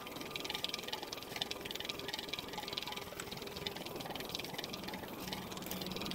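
Faint, dense crackling and rustling of a handheld camera being carried at a walk, over a faint steady hum.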